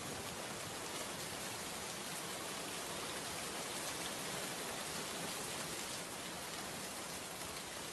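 Steady rain falling, a dense even hiss of many drops with no let-up.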